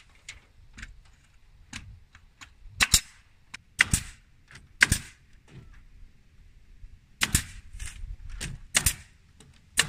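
Pneumatic nail gun firing nails through wooden siding boards into a wall: a string of sharp shots, several coming in quick pairs.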